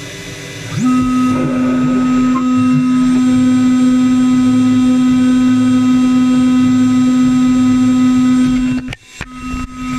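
CNC router running: a steady, loud motor tone starts about a second in. It cuts out briefly near the end with a few clicks, then comes back.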